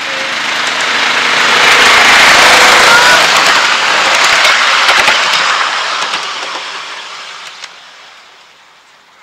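Petrol-engined miniature railway locomotive (a Mardyke Class 35 Hymek outline) hauling passenger carriages past and away along the track: the engine and the wheels rumbling on the rails grow to their loudest about two to three seconds in, a few sharp clicks come around five seconds in, and the sound then fades away.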